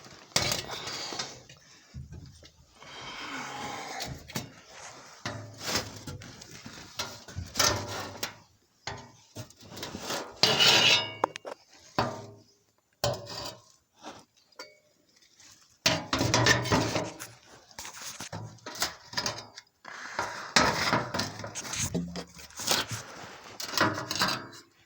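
Irregular clanking and scraping of metal, in short bursts separated by brief pauses, with no power tool running.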